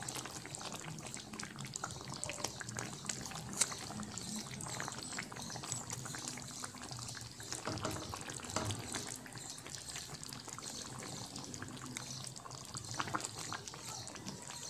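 A tomato-based chicken stew simmering in a pan, bubbling steadily with small pops and crackles. A few louder soft knocks come as pieces of saba banana are set into the stew.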